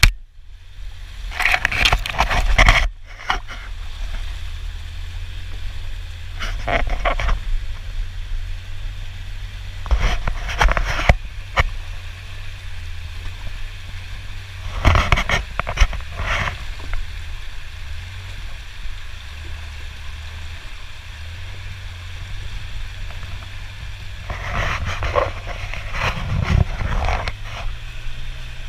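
Polaris Ranger 6x6 side-by-side's engine running steadily at low speed while it drives through a rocky creek and along a brushy trail. Bursts of splashing water and scraping brush come and go several times over the engine hum.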